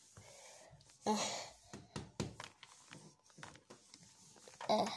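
Plastic toy figures and a plastic toy car being handled: scattered light knocks and rubbing, with a short breathy sigh about a second in.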